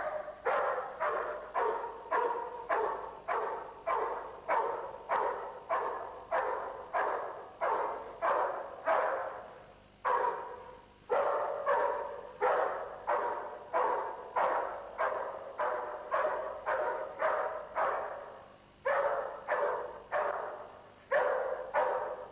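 A dog barking over and over, about two barks a second, pausing briefly near the middle and again later on.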